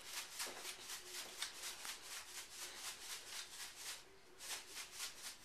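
Dry granulated sugar and yeast swishing inside a plastic 2-liter bottle as it is shaken to mix them, about five even strokes a second. The shaking pauses briefly about four seconds in, then a few more shakes follow.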